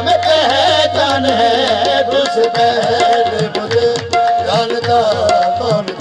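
Live qawwali music: harmonium melody over tabla strokes, with the lead singers' voices in held, ornamented lines between the sung verses.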